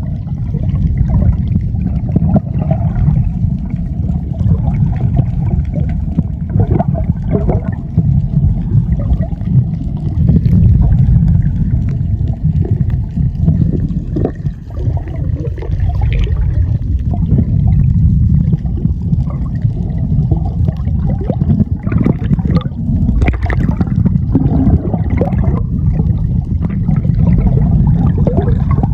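Water gurgling and sloshing over a steady low rumble, with irregular flurries of bubbling.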